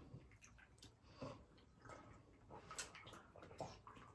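Faint chewing and mouth sounds of people eating, with a few scattered soft smacks and clicks.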